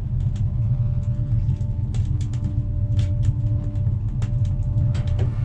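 A steady, loud low rumble with a faint hum and scattered light clicks.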